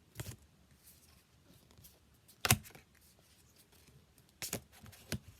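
Pokémon trading cards being handled and flipped through: four short sharp snaps, the loudest about halfway through, with quiet in between.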